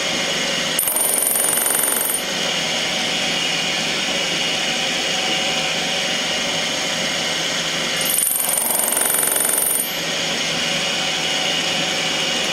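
Milling machine spindle spinning a single-tooth fly cutter at high speed: a steady machine whine with several held tones. Twice, about a second in and again around eight seconds, a harsher, higher sound joins for a second or two as the cutter takes a light skim cut through a brass crown wheel tooth.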